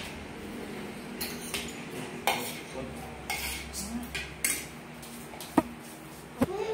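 Spoons and forks clinking and scraping against ceramic dinner plates while people eat: a scattered run of light clicks and short scrapes, with two sharper clinks near the end.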